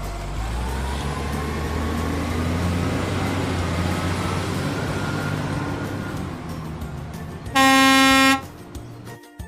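A battery-powered toy vehicle's sound chip playing a steady engine-running effect, then one loud electronic horn beep lasting under a second near the end.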